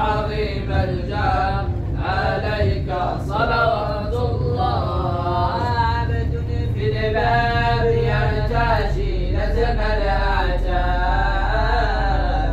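Vocal music: a chanting voice singing long, wavering melodic phrases over a steady low hum.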